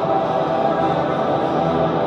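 Ambient gothic music: a dense, steady drone of layered sustained tones.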